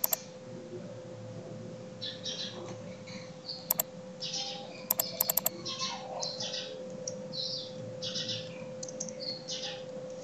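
Computer keyboard keys and mouse clicks: a few sharp clicks, then a quick run of clicks about five seconds in. Short high-pitched sounds come and go between them over a steady low hum.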